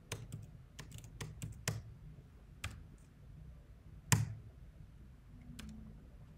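Computer keyboard typing: a quick run of about seven or eight key clicks in the first two seconds, then a few single clicks, the loudest about four seconds in.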